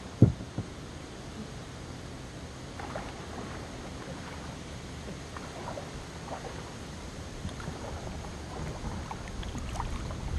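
Kayak paddling: soft paddle splashes and drips over a low steady rumble, with a sharp knock just after the start that is the loudest sound.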